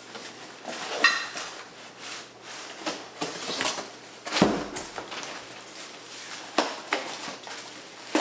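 Cardboard gift boxes and packaging being handled and opened: a run of knocks, scrapes and rustles, with a louder thump about four and a half seconds in as an emptied box is tossed onto the floor.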